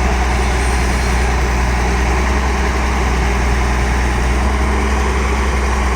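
Tata Hitachi excavator's diesel engine running steadily with a deep hum, working the hydraulics as the machine presses down on its bucket to lift its tracks.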